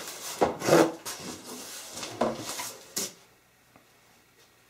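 Cardboard box flaps being pulled open and folded back, several rustling, scraping sweeps of cardboard over about three seconds.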